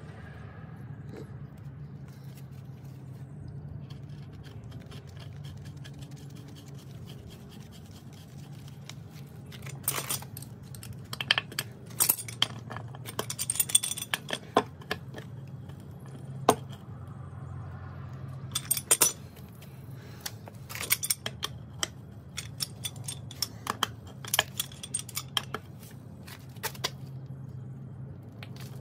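Pipe wrench working an iron gas-pipe union at a gas meter: sharp metal clicks, clinks and scrapes in clusters, starting about ten seconds in. A steady low hum runs underneath.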